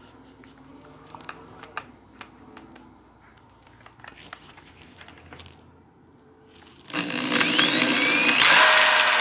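Faint clicks from a drill's keyless chuck being turned by hand. About seven seconds in, a corded electric drill starts and runs, its whine rising and falling in pitch as it bores through a plastic pickguard, enlarging a pilot hole with a bigger bit.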